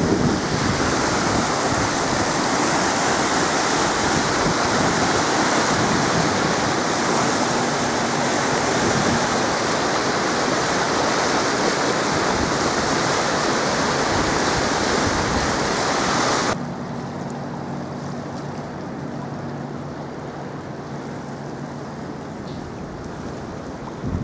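Water rushing through the open gates of a hydro dam: a steady wash of noise that drops suddenly to a quieter level about sixteen seconds in, where a faint low hum is also heard.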